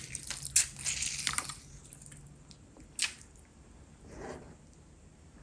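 Close-miked wet squishing and crackling of a lemon half being squeezed over food, strongest in the first second and a half, then a single sharp click about three seconds in and a softer rustle near four seconds.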